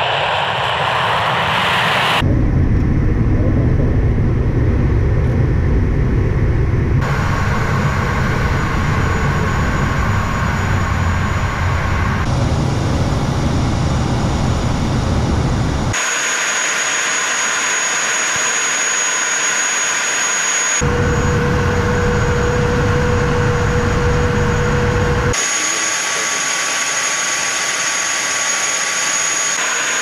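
Jet aircraft engine noise in a series of abruptly cut segments. It opens with a Tu-160 strategic bomber's turbofan engines at takeoff, then a heavy low rumble. From about halfway, steadier in-flight engine noise carries a high, steady whine.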